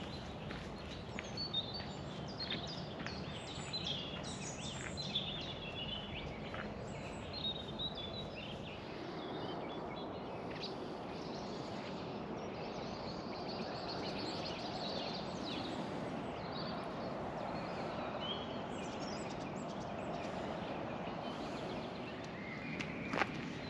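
Songbirds chirping and calling over a steady outdoor background noise, with the calls thickest in the first several seconds. A few footsteps near the end.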